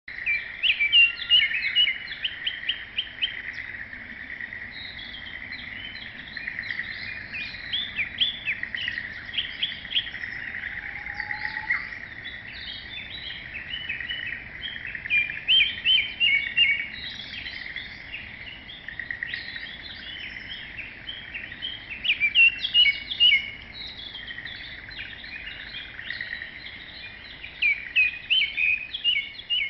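Wild bird song: rapid runs of high chirps and trills, louder in bursts near the start, in the middle and near the end, over a steady high hum.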